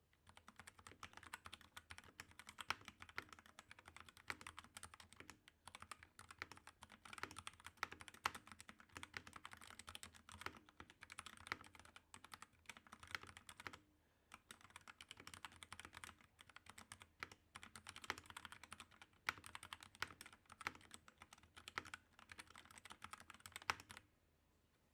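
Fast typing on a DAXA M71 Pro mechanical keyboard fitted with lubed Outemu Red linear switches, clipped and lubed stabilizers and an EVA-foam-damped case. The keys clack in a quick, steady run with a few brief pauses and stop about a second before the end.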